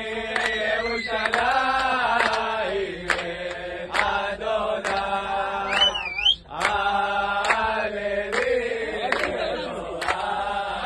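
A group of men and boys singing a Hebrew piyyut (liturgical hymn) together in chant-like unison, with sharp hand claps every second or so. A sliding whistle rises and falls about six seconds in.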